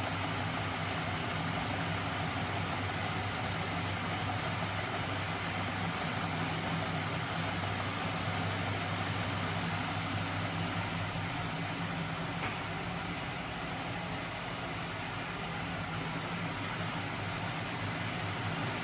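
A homemade magnet engine rig driven by a small 12 V electric motor, its crankshaft and flywheels spinning, running steadily with an even hum and whirr. There is one light click about twelve seconds in.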